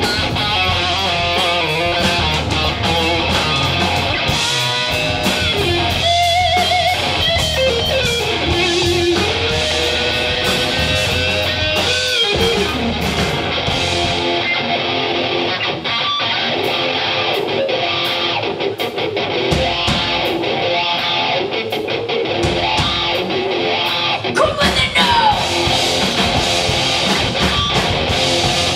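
Live rock band playing an instrumental section: electric guitar with bending, sliding notes over bass and drums, with no singing.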